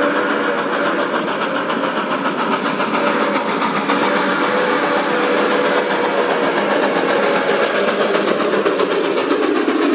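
Loud, steady running noise of a train. Over it, a train horn sounds a steady chord briefly at the start and again from about four to six seconds in.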